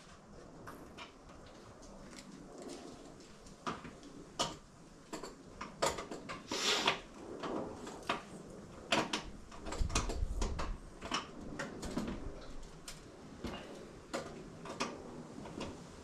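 Irregular clicks, clinks and knocks of hand tools and metal parts being handled while parts are unbolted in a car's engine bay, with a short scraping rush about six and a half seconds in and a dull thump near ten seconds.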